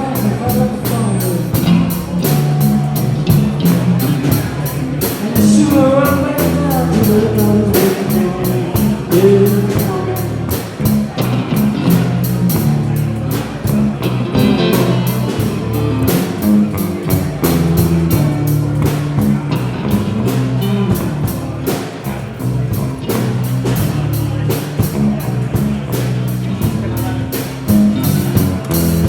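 Rock band playing with electric guitar and drum kit to a steady beat, with a sliding, bending melody line about five to ten seconds in.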